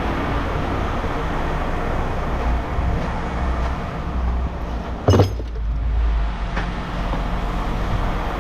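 A vehicle engine running steadily, with a single loud bang about five seconds in.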